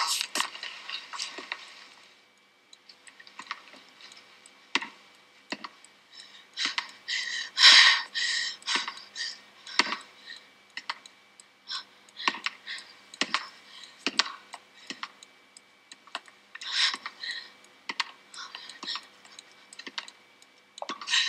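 Scattered sharp clicks and taps at irregular spacing, bunching together in the middle and again near the end, with one brief louder rustle about eight seconds in.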